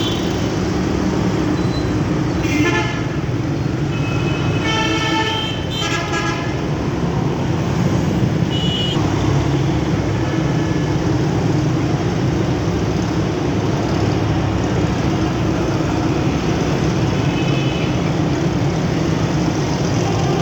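Bus horn sounding in a series of short blasts, several close together a few seconds in and a few fainter ones later, over the steady running of the bus engine and road noise.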